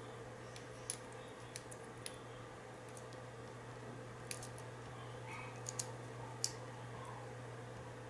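Faint, scattered metallic clicks and ticks of a pick working the pin stacks of a Mul-T-Lock interactive padlock core held under a tension wrench, over a steady low hum.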